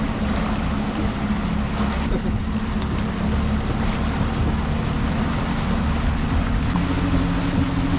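Suzuki outboard motor running steadily at trolling speed, a low even hum, with wind and the boat's wake rushing past.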